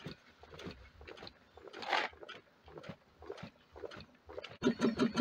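Wood-fired alpha Stirling engine running slowly, giving soft, uneven puffs and knocks. Near the end the sound switches to a louder, steady puffing of about five beats a second as the engine runs at speed.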